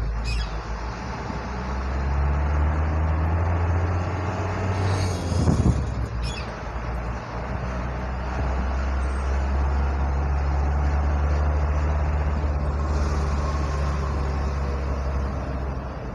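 Diesel delivery truck engine running under way, a steady low drone. The engine note breaks briefly about five and a half seconds in, with a short hiss, then settles back to a steady drone.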